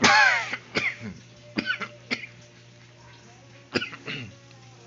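A person coughing and clearing their throat: a loud cough at the start, then several shorter coughs and throat-clearing sounds.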